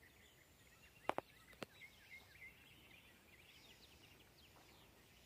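Faint chorus of small birds chirping, many short quick calls overlapping. Two sharp clicks about a second in, half a second apart, stand out above them.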